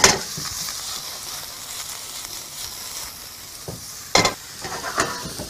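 Wild mushrooms sizzling steadily as they fry in olive oil in a pan, stirred with a spoon that clicks sharply against the pan right at the start and again about four and five seconds in.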